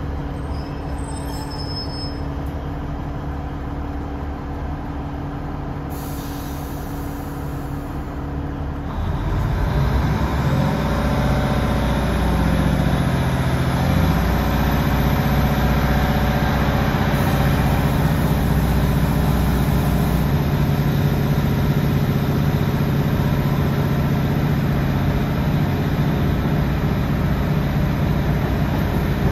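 Class 150 diesel multiple unit heard from inside the carriage: its underfloor Cummins diesel engine idles steadily, then about nine seconds in it powers up and gets louder, rising in pitch as the train pulls away and accelerates.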